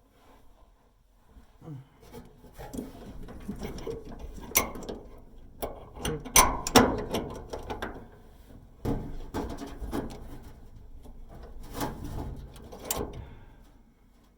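Hands working inside the back of a Samsung dryer to hook the idler pulley's tension spring back on: irregular scraping and rubbing with several sharp metal clicks and knocks. The busiest stretch is in the middle, and it dies down near the end.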